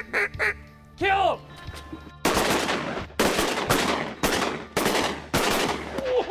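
A volley of about six shotgun shots fired in quick succession over about three seconds at ducks in flight, preceded in the first second or so by a few duck quacks.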